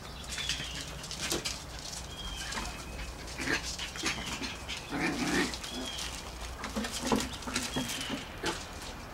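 Havanese puppies playing, with short growls and yaps around the middle over scattered clicks and knocks.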